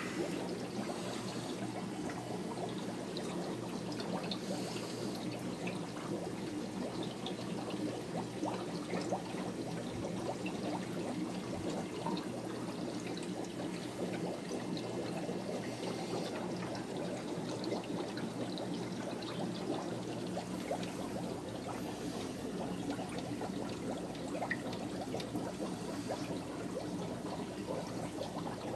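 Steady trickling and bubbling of aquarium filters, with a low steady hum underneath.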